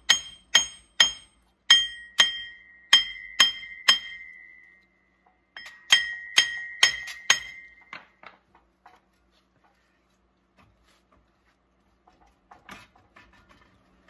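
Hammer blows on a stuck Ford Super Duty front hub bearing assembly to drive it out of the steering knuckle, each strike ringing metallically. The blows come in two quick runs of about two or three a second, with a short pause between. After the second run only a few faint clicks and knocks remain.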